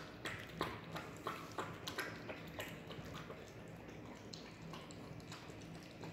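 Golden retriever puppy eating soft, wet food from a stainless steel bowl: faint, irregular clicks and smacks of its mouth at the food, coming several a second at first and thinning out after about three seconds.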